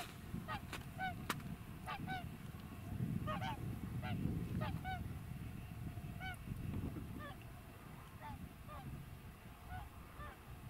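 A group of swans calling: short, hooked trumpeting notes from several birds at slightly different pitches, about two a second, over a low rumble.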